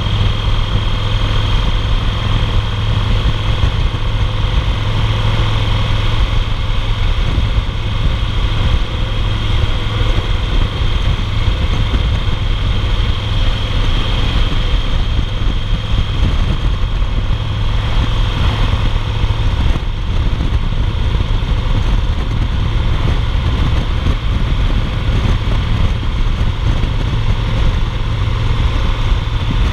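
2008 Yamaha Roadliner's V-twin engine running steadily at highway cruising speed, mixed with wind and road noise.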